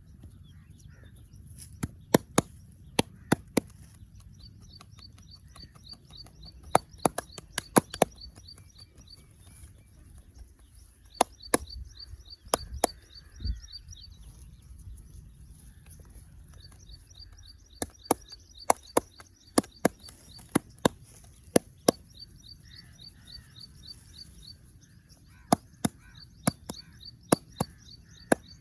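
Sharp hand strikes of a head massage, quick chops and slaps landing in clusters of two to five with pauses between. A fast, repeating chirp comes and goes behind them over a steady high hiss.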